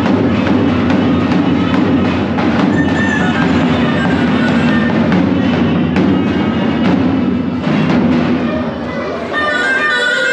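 Loud dance music with a steady, heavy drum beat. About nine seconds in the drums stop and a higher melody carries on.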